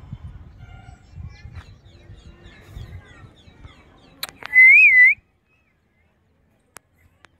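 Faint outdoor background with small bird chirps, then a loud whistle about four and a half seconds in, a single clear tone whose pitch wavers up and down for about half a second.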